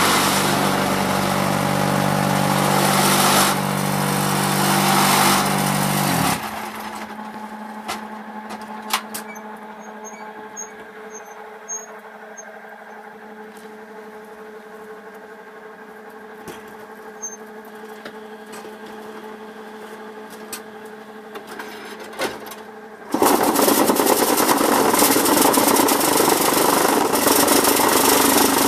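Semi-automatic concrete hollow block machine in operation: a loud, rough vibrating run that cuts off about six seconds in, leaving a low steady hum with scattered knocks and clanks, then starts up loud again abruptly about two-thirds of the way through.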